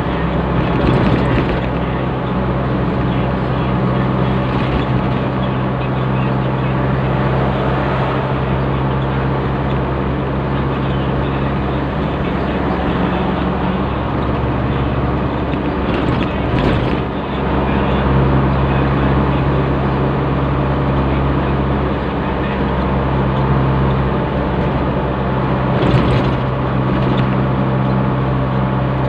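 Steady engine hum and road noise inside a diesel vehicle cruising at speed on an expressway. There are brief louder rushes about a second in, midway, and near the end.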